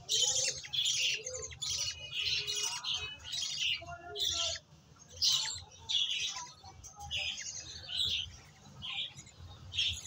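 Budgerigar chicks giving short, raspy, high-pitched begging calls over and over, about one or two a second, as they are hand-fed from a syringe.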